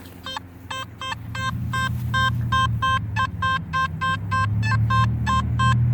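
Nokta Simplex+ metal detector beeping through its built-in speaker, a rapid string of short target tones at about three to four a second as the coil is swept, picking up targets over and over. A low rumble builds underneath about a second and a half in.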